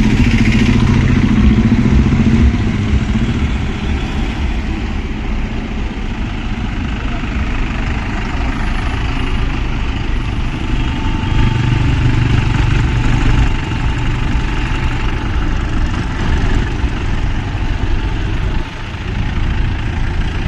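Motor vehicle engines idling and running in a steady drone, swelling briefly near the start and again about eleven seconds in.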